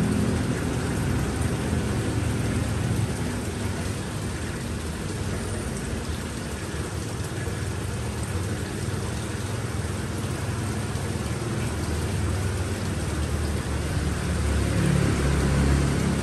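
Steady hiss of falling water, with low humming tones underneath that are stronger near the start and again near the end.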